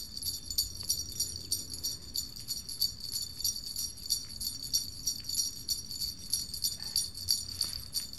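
Small jingle bells ringing continuously in a steady jingling rhythm, high-pitched and without a break, over a faint low rumble.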